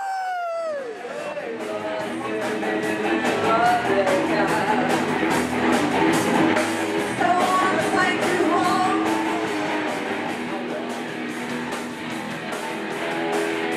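Live rock music: a band with guitar and singing over a steady beat. Right at the start a voice close to the microphone lets out one rising-then-falling shout.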